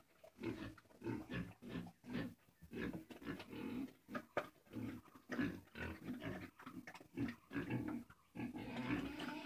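Sow grunting in short, repeated grunts, about two or three a second, with her head in a feed trough as she eats.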